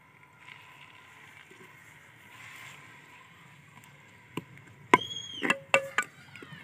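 Steel spoon stirring onion, garlic and ginger paste in a steel pot, clanking against the pot's side and bottom several times in the last two seconds, each knock ringing briefly, the loudest about five seconds in.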